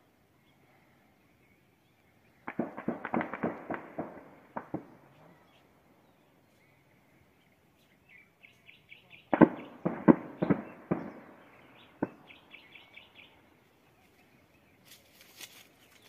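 Distant gunfire echoing across the hills: a burst of rapid shots a couple of seconds in, a second burst about halfway through, then a single shot.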